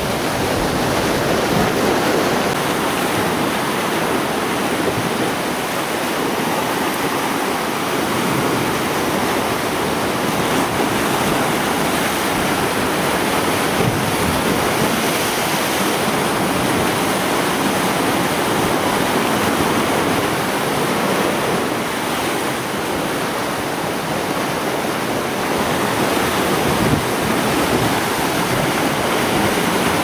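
Sea surf surging into a narrow inlet and breaking against volcanic rock, a steady rush of churning water.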